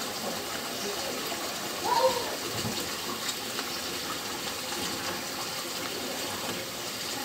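Rice and pigeon peas boiling hard in broth in a metal pot, bubbling steadily, while a wooden spoon stirs and scrapes the bottom of the pot. A brief tone sounds about two seconds in.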